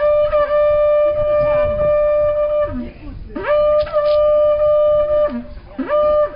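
A wind instrument blown in three long notes at the same pitch. Each note slides up into the tone and drops away at its end; the first two last about two seconds each, the third is shorter.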